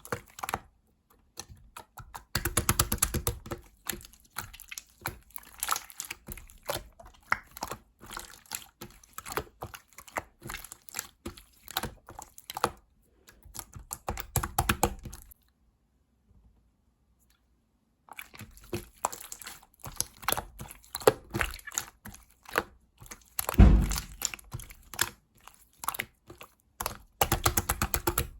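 Mint-colored slime being squished, pressed and stretched by hand, giving dense irregular clicks, crackles and small pops as air pockets burst. It stops for about three seconds around the middle, and there is a heavier squelch a little before the end.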